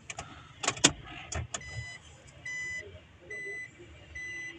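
A few sharp clicks and knocks, then, from under two seconds in, a steady electronic beep repeating a little faster than once a second, four times: the reverse warning beep that sounds when the car is put in reverse and the reversing camera comes on.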